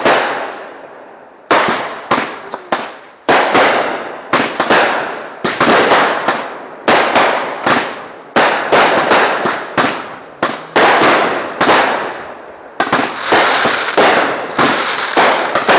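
Aerial fireworks bursting in quick succession: sharp bangs about once a second, each trailing off into crackle. In the last few seconds they run together into a dense, continuous crackling barrage.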